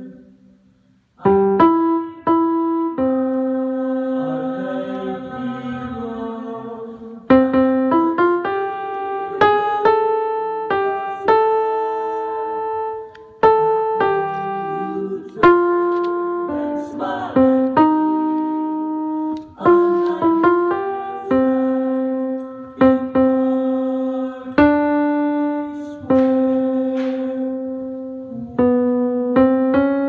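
Piano playing a slow melody of struck notes and chords, each note dying away after it is struck; it starts about a second in, after a short silence.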